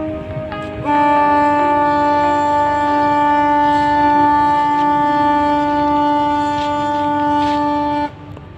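Passenger ship's horn sounding one long, steady blast of about seven seconds, starting about a second in and cutting off abruptly near the end, as the KM Barcelona 3A arrives at port.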